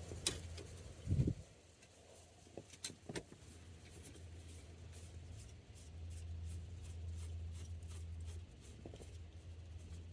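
Light clicks and a soft knock of a screwdriver and small parts being handled, with a screw being taken out at the turn-signal switch, over a low steady hum.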